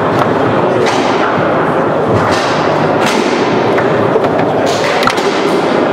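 Foosball play on a Leonhart table: the ball knocked about by the plastic men, with several sharp knocks and thuds from shots and rods, over steady background noise.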